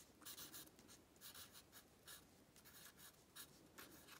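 Sharpie permanent marker writing letters on the bare wood of a canvas stretcher bar: a run of short, faint scratchy strokes coming in quick bunches with brief pauses between letters.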